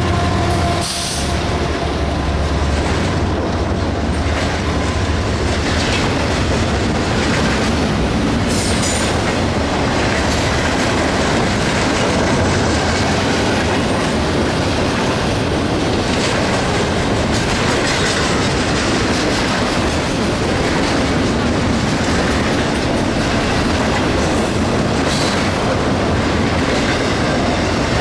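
A BNSF train rolling past close by, a loud steady rumble with wheel clatter on the rails and a few brief high wheel squeals.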